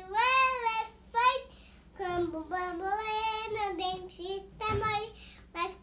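A young girl singing unaccompanied, in sung phrases broken by a pause of about a second near the start.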